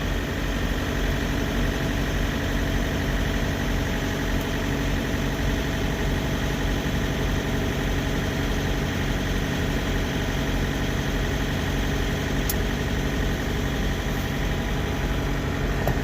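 A big truck's diesel engine idling steadily, loud through the open cab door.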